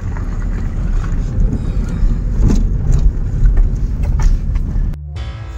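Car driving, heard from inside the cabin: a loud, low engine and road rumble with scattered knocks and rattles. About five seconds in it cuts off abruptly and music with held tones begins.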